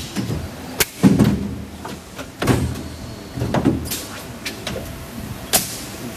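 Injection blow molding machine at work: an irregular run of mechanical clunks and short hissing bursts, about one every second or two, the loudest about a second in.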